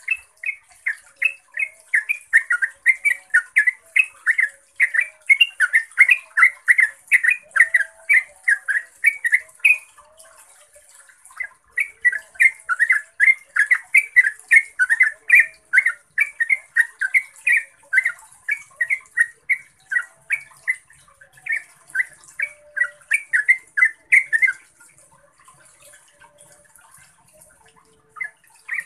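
Yellow-vented bulbul singing long runs of rapid, bubbly notes, about three a second. It breaks off for about a second a third of the way in, then falls quiet a few seconds before the end and starts again at the very end.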